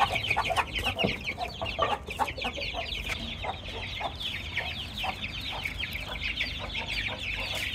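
A caged brood of hungry young chickens peeping nonstop in many overlapping, rapid, falling chirps, with a hen clucking now and then.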